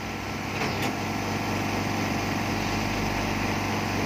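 Pump motor of a 3-in-1 LCD laminating machine running with a steady hum as the laminating cycle builds pressure, growing louder over the first two seconds and then holding level; a light click about a second in.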